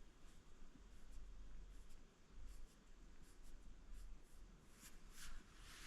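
Near silence: a low room hum with faint scratching and handling noises, a little louder about five seconds in.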